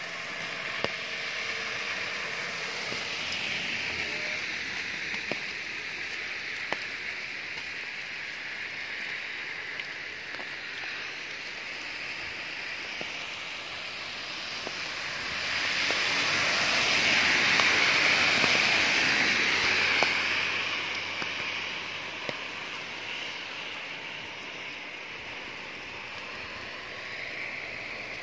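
Steady hissing road and wind noise from a car driving through falling snow, swelling louder for several seconds past the middle, with a few short ticks.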